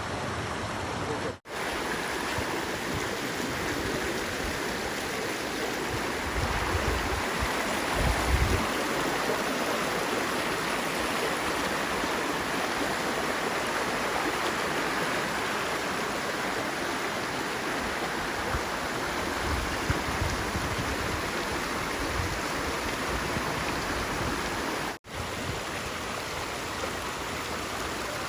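Rushing mountain stream: a steady wash of flowing water, broken by two very short dropouts, with a few low rumbles on the microphone in the first third and again later.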